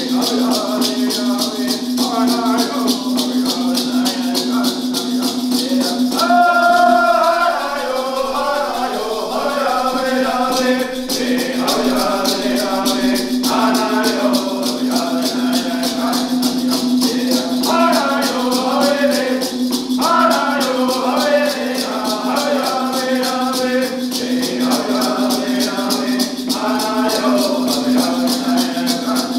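Haudenosaunee women's shuffle dance song: a group of male voices singing in unison over hand rattles shaken in a fast, steady beat, with no break in the song.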